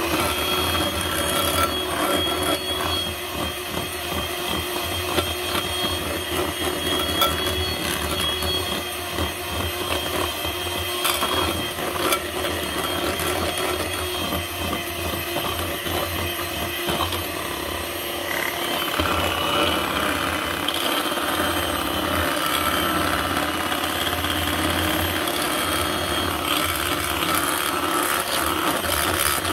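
Small electric hand mixer running steadily, its twin beaters whisking thick cake batter in a glass bowl.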